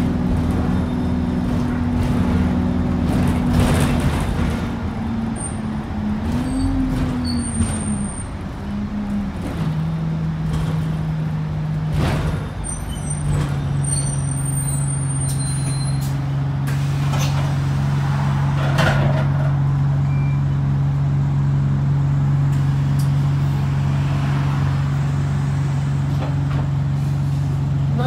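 Enviro 200 single-deck bus running under way, heard from inside the saloon: engine and drivetrain noise carrying a steady humming tone, the unusual sound this bus makes when accelerating. The tone steps down in pitch about a third and about halfway through, with a short rising-and-falling glide about six seconds in, and a few brief sharp noises.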